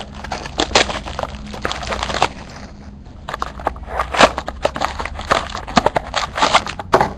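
Packaging of a trading-card pack being handled and torn open: a run of sharp crinkles and crackles, with a short lull about three seconds in.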